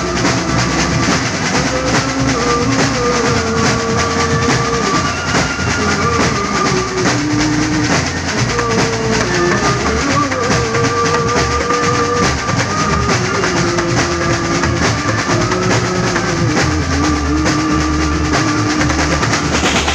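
Band music: an instrumental passage with a melody line over a busy drum kit, without singing.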